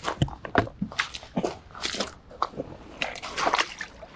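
Hiking boots tramping through wet ground and shallow water: a run of irregular crunching, splashing steps.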